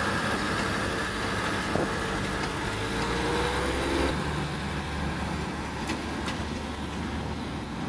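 Diesel railcars passing slowly, the engine running with a steady tone that rises slightly. About four seconds in, the engine tone stops and a broader, quieter rumble of rail traffic remains, with two sharp clicks near the end.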